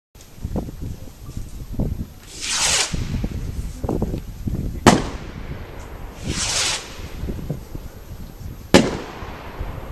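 Two Lesli Spyder 20 firework rockets: each goes up with a short rushing hiss and bursts with a sharp bang about two and a half seconds later.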